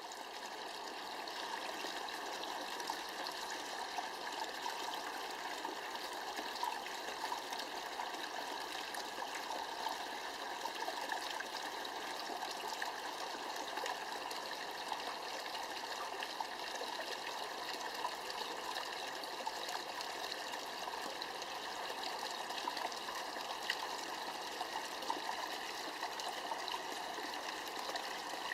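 Small tabletop flowing-water landscape bonsai: water trickling steadily through the miniature landscape into its basin.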